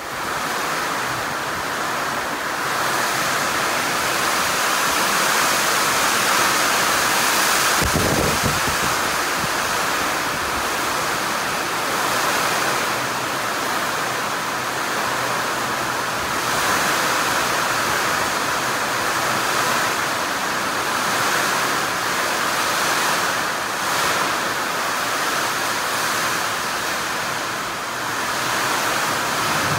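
Heavy wind-driven rain pouring down onto a concrete driveway, a loud, steady hiss, with one short low thump about eight seconds in.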